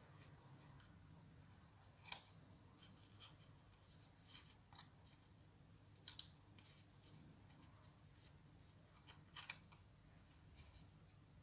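Faint scattered clicks and soft scratches of wool strands being pushed into the cut slits of a hand-held braiding wheel, over quiet room tone; the sharpest click comes about six seconds in.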